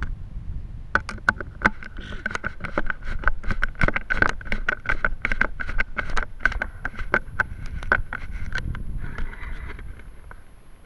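Rapid, irregular knocks, taps and rubbing of hands and parts on an amateur rocket's airframe, heard from inside the body by its onboard camera as the rocket is lifted and its upper stage fitted. A low rumble and a faint steady whine run underneath, and the knocks thin out near the end.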